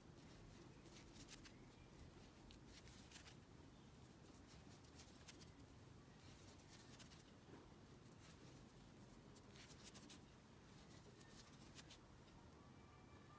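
Near silence with the faint rustle and light clicks of a crochet hook working yarn, as single crochet stitches are worked in the round.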